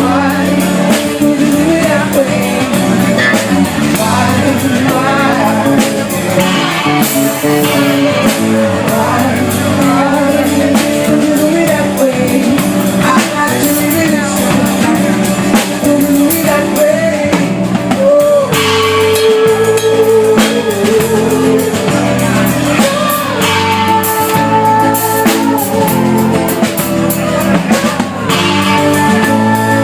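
Live band playing an instrumental passage of a slow pop song: guitar and drum kit under a melodic lead line that bends in pitch.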